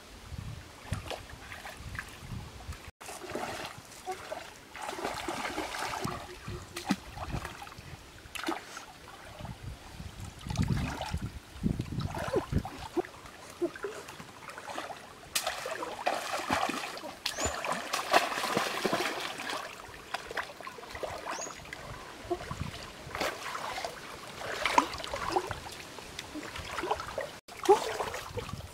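Shallow stream water splashing and sloshing irregularly as a person wades through it and drags a fish net, over the trickle of running water.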